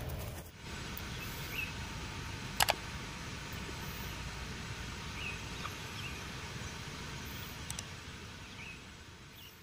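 Outdoor ambience: a steady low background noise with short, high chirps now and then. Two quick clicks come close together about two and a half seconds in, and the sound fades out near the end.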